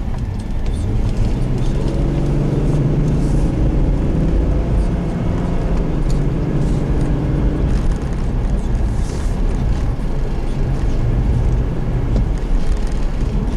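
Fire apparatus engine running while under way, with a steady low road rumble; its note climbs about two seconds in and eases back off near eight seconds.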